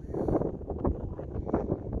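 Wind buffeting the microphone in uneven, low rumbling gusts, with stronger gusts shortly after the start and again about one and a half seconds in.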